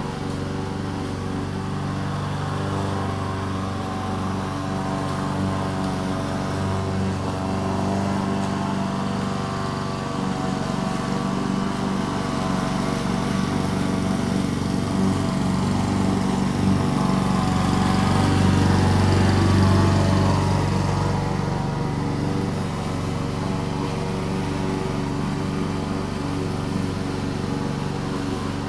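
Gasoline lawn mower engine running steadily while cutting grass, growing louder about two-thirds of the way through as it passes closest, then easing back.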